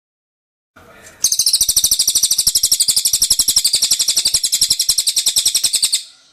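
Cililin songbird singing one long, rapid, high-pitched trill of evenly repeated notes, about ten a second, lasting roughly five seconds. It starts about a second in with a brief soft lead-in and cuts off near the end.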